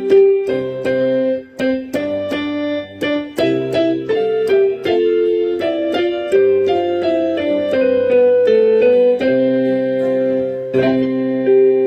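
Piano-type keyboard playing a melody over chords, notes struck one after another in an even, unhurried rhythm.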